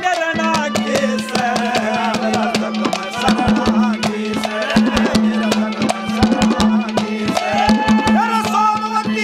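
Instrumental break in live Haryanvi ragni folk music: rapid hand-drum strokes over a steady held drone note, with a melody line bending above it.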